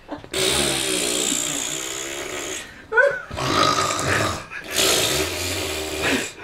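A woman making two long, exaggerated mock snores, each a couple of seconds, with a short vocal squeak between them.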